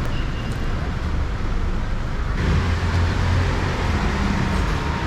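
Steady street background noise with a low rumble like traffic; the noise changes abruptly about two and a half seconds in.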